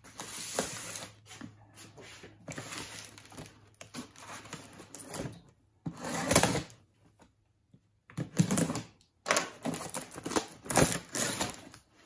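A cardboard box being unpacked: plastic wrap sliced with a utility knife and pulled off, then the cardboard flaps opened, making irregular bursts of crinkling, rustling and scraping. The loudest burst comes about six seconds in.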